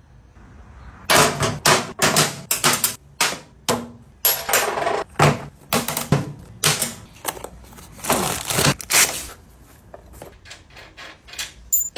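Irregular metal clanks, clicks and rattles of parts and tools being handled, as in work on a motorcycle chain and sprockets, starting about a second in.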